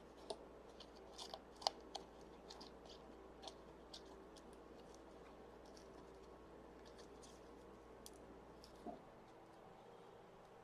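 Faint, scattered small clicks and ticks of hand tools working the display parts out of an opened Samsung Galaxy S6, several in the first two seconds and a few more later.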